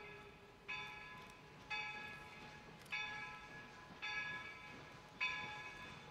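Locomotive bell rung steadily as the steam train approaches the crossing: five strokes about 1.2 seconds apart, each ringing out and fading before the next.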